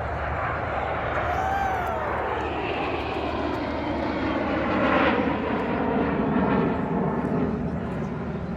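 Aircraft flying past at an airshow: a steady engine noise with a whine that falls in pitch as it passes, swelling louder about five seconds in.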